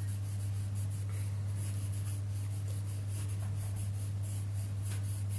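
Graphite pencil scratching on drawing paper in many short strokes as a small rhombus is sketched, over a steady low hum.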